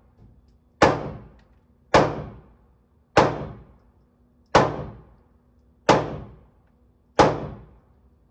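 Six gunshots fired one after another at a steady pace, about one every 1.3 seconds, each a sharp crack that dies away quickly.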